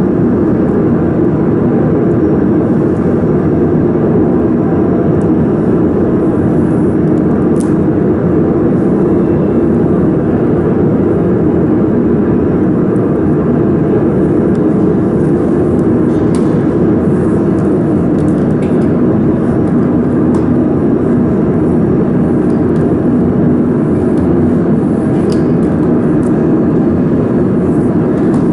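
Steady, unbroken drone of cooling fans running on a laser mould welding machine, with a few faint clicks of cable connectors being handled.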